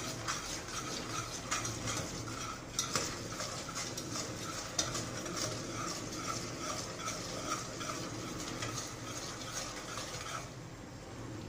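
A metal spoon stirring and scraping around the bottom of a stainless-steel pot, a dense run of scrapes, as sugar heats toward caramel on a portable gas stove. The stirring stops near the end.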